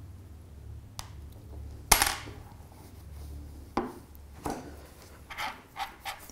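A sharp hard knock about two seconds in, then several short rubbing strokes as a cloth wipes a Huawei Nova 3i's glass back.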